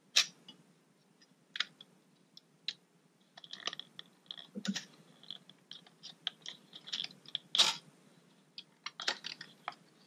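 Irregular small clicks and scrapes of a Mac Mini's perforated metal Wi-Fi shield plate being handled and lifted loose by hand against the case. The sharpest clicks come right at the start and about three-quarters of the way through.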